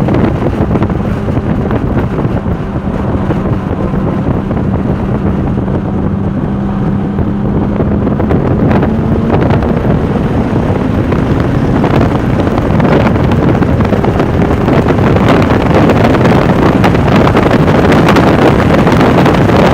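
Sports car running at speed on a race track, with wind noise on the microphone. The engine note climbs slowly in pitch, then the sound grows louder about two-thirds of the way through.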